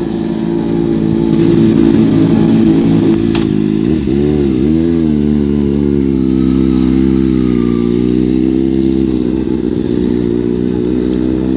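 Sport motorcycle engine running steadily, its pitch dipping briefly and climbing back about four seconds in, then held even.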